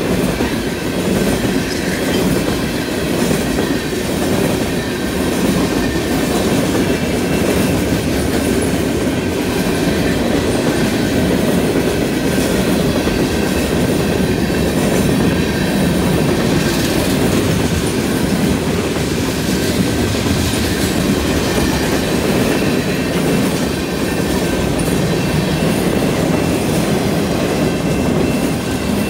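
Freight train cars rolling past on the rails: a steady rumble and clatter of steel wheels on track, with a faint high-pitched squeal of wheels.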